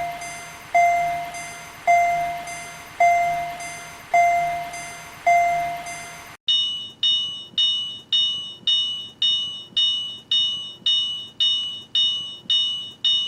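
Railroad crossing warning bells: a lower-pitched ding, each ring fading, struck about once a second. About six seconds in it switches to a higher-pitched bell at about two strikes a second.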